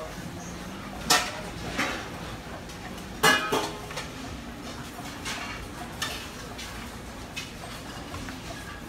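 Clatter of metal serving tongs, steel pots and dishes at a buffet counter: a few sharp metallic clinks, the loudest, with a brief ring, about three seconds in, over a steady low background hum.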